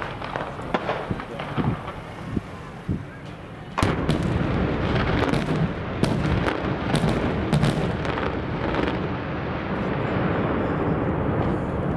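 Dynamite blasts on a hillside, Kalymnos Easter style. Scattered sharp bangs come first; about four seconds in a big blast sets off a sustained loud rumbling din dotted with many sharp cracks.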